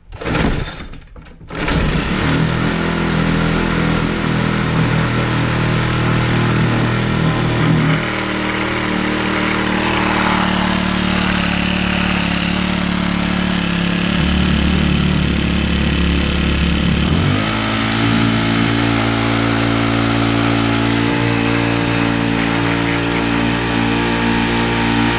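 Tiny four-cycle overhead-valve Briggs & Stratton engine on an edger, pull-started: a yank of the recoil cord, then it catches on the first pull about a second and a half in. It runs steadily from there, its speed shifting a couple of times, near the middle and again about two-thirds through.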